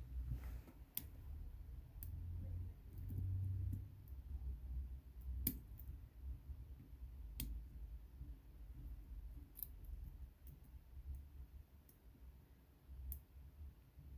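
A Peterson standard hook pick and top-of-keyway tension wrench working the pins of a five-pin SIL monoblock padlock: faint, irregular sharp clicks a second or more apart as pins are lifted and set, over a low rumble of handling noise.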